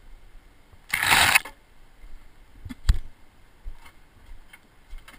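Footsteps and gear handling on a rocky trail picked up by a body-worn camera: a short, loud rustling scrape about a second in, a sharp knock just before the three-second mark, then a few faint ticks.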